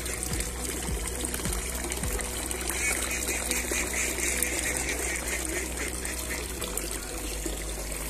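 Water from a garden fountain spout falling into a pond, a steady splashing trickle.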